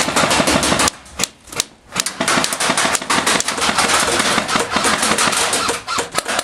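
Airsoft guns firing rapid full-auto strings of shots, a fast loud clatter of clicks. The firing eases to a few single shots about a second in, then picks up again in long strings.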